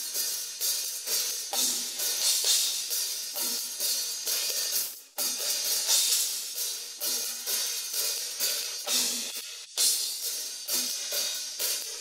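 Isolated cymbal track of a rock drum kit: steady cymbal strokes about two a second with a bright, washy shimmer, broken by short gaps and big crash hits about five seconds in and again near ten seconds, with faint bleed of the other drums underneath.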